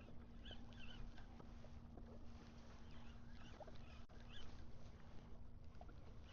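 Faint water noise around a kayak on open water, with a steady low hum underneath and small high chirps now and then.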